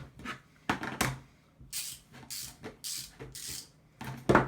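Handling sounds: a few sharp clicks and knocks, then four short hisses in a row, and a loud sharp knock near the end.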